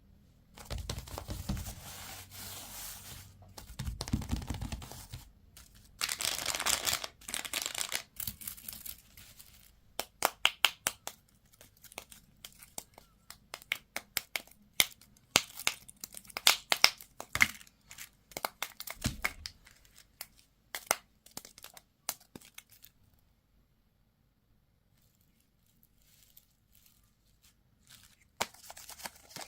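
Candy and toy packaging being torn open and crinkled. Steady tearing and rustling at first, then a long run of sharp crackles and snaps, then a few seconds of near quiet before the crinkling starts again near the end.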